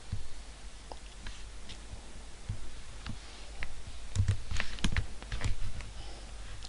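Keystrokes on a computer keyboard and mouse clicks. Scattered single clicks come first, then a quicker run of keystrokes about four seconds in as a web address is typed.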